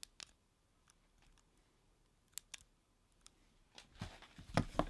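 Scattered light clicks of long fingernails against a stylus pen, then near the end a louder spell of rustling and a few soft knocks as the cardboard box and its foam insert are handled.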